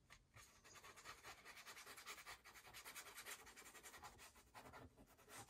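Near silence, with faint, irregular rustling of paper as a hand presses and rubs down a glued paper flap.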